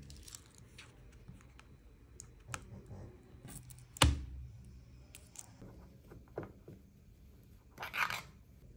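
Quiet handling noises on a laptop and desk: scattered small ticks and scrapes, with one sharp tap about four seconds in as a fingernail meets the laptop's lid. Near the end comes a brief rustle as a fabric drawstring pouch is opened.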